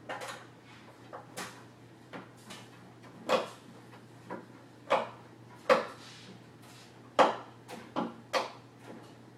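Irregular knocks and clunks on a bed frame as it is being taken apart, about a dozen sharp hits a half-second to a second and a half apart, some louder than others.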